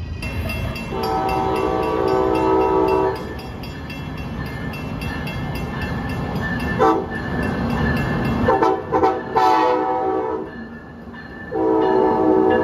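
Train air horn sounding a chord of several notes in a horn show: a long blast about a second in, then a short toot and a quick string of short blasts around the middle, and another long blast near the end. Under it runs the rumble of the train on the rails.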